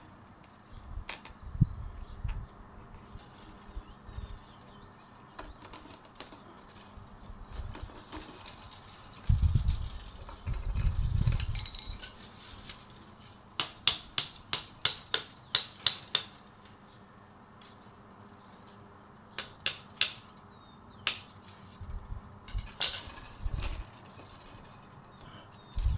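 Thin bamboo strips clicking and rustling as they are woven by hand into the base of a bamboo fish creel. There is a quick run of sharp clicks, about four a second, near the middle, and duller rubbing and knocking of the strips a little before it.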